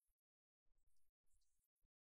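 Near silence, with a few faint, brief patches of noise about halfway through.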